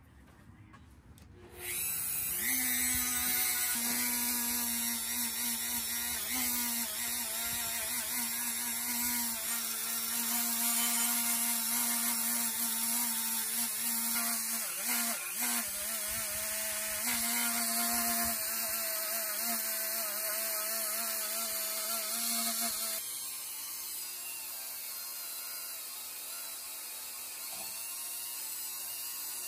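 Motor-driven bench wheel working a steel knife blade to clean its surface. A loud, steady whir with a low hum comes in suddenly about two seconds in. About twenty-three seconds in it drops to a quieter whir without the hum.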